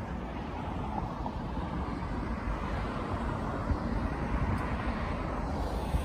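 Outdoor road ambience: a steady low rumble of wind buffeting the microphone, mixed with traffic noise, with a few sharper gusts in the second half.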